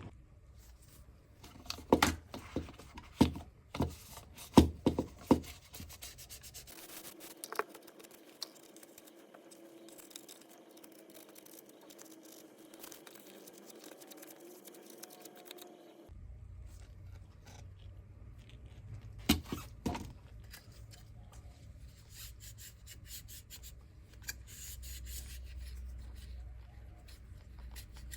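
Rubbing and handling noises, with a cluster of sharp clicks and knocks a couple of seconds in and two more about two-thirds of the way through. A faint steady hum runs for several seconds in the middle.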